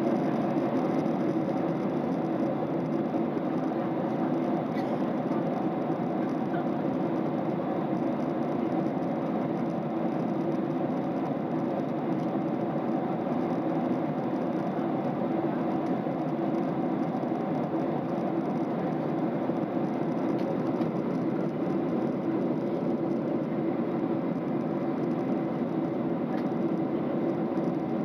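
Steady drone of a jet airliner's cabin at cruise: the rush of air along the fuselage and the engines' hum, even and unchanging.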